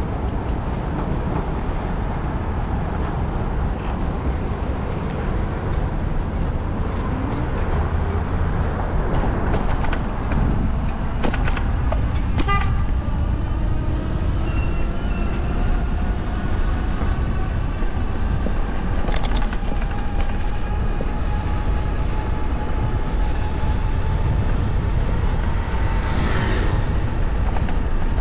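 Busy city street traffic heard from a moving bicycle: a steady low rumble of vehicles. A long whine slowly rises in pitch over the second half, with a short sharp sound about halfway through.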